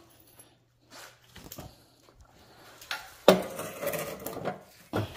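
Metal clanking as a removed Subaru EJ25 exhaust manifold and its thin sheet-metal heat shield are set down and handled on the floor. There is one loud clank with clatter after it about three seconds in, and another sharp knock near the end.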